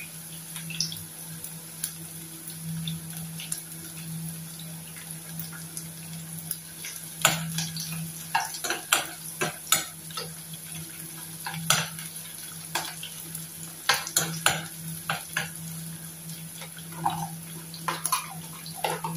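Chopped onions sizzling in oil in a non-stick wok, with a steady low hum underneath. From about seven seconds in, a metal utensil scrapes and taps against the pan in irregular strokes as the onions are stirred.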